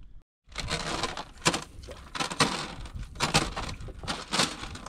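Cast net being hauled in by hand over the side of a wooden boat: wet netting and line rasping over the gunwale, with a sharp knock about once a second as each pull comes in.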